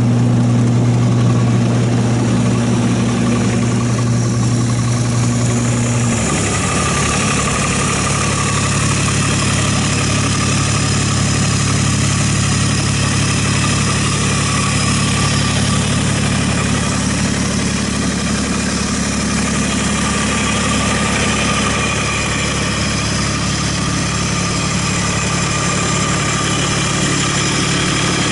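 Kubota diesel engine of a Hustler 3400 ride-on mower running steadily. Its tone shifts abruptly about six seconds in, then holds steady.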